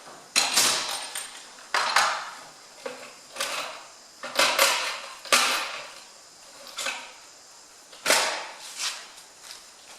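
Irregular sharp metallic clinks and knocks of hand tools and engine parts being handled at a tractor engine's bottom end, each with a short ring.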